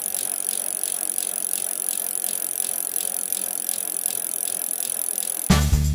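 A steady mechanical rattling whirr with a bright high hiss. Near the end it is cut off by music with a strong swing beat.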